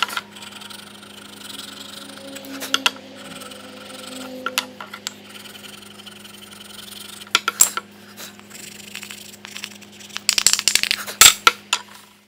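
Scattered sharp clicks and clinks of hard objects being knocked and set down, thickening into a quick run of clinks near the end, over a steady low electrical hum.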